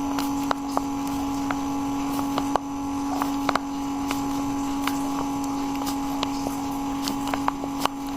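A small electric motor humming steadily at one pitch, with scattered light clicks and taps over it.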